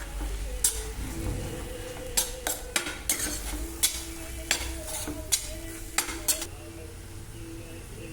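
A spoon stirring food in a pan, clinking against the pan about a dozen times, mostly in the middle of the stretch, over a low sizzle of frying.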